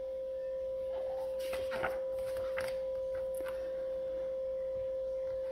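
A steady pure tone hums without a break, a single high-pitched note with a fainter overtone above it. Over it, a picture book's paper page rustles faintly as it is turned, about one and a half to two and a half seconds in.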